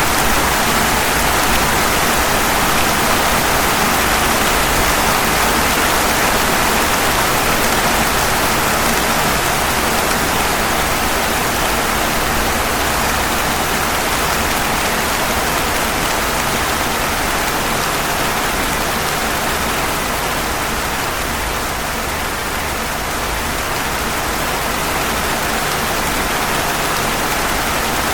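Steady rain falling on pavement, an even hiss that eases slightly about three-quarters of the way through.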